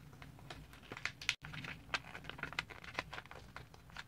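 Sheet of paper being handled and folded, giving irregular crinkles, rustles and light taps, with a brief cut-out in the audio about a second and a half in.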